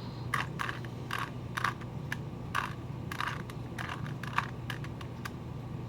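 Rubik's Cube being turned by hand: about a dozen quick, clicking turns of its plastic layers at an uneven pace.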